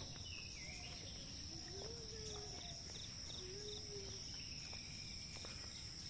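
Steady high-pitched drone of insects, with a brief run of evenly spaced chirps midway and a few faint calls under it.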